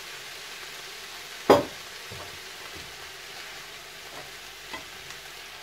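Stir-fry of prawns and vegetables sizzling steadily in a frying pan, with one loud knock about a second and a half in and a few light ticks of the spatula against the pan near the end.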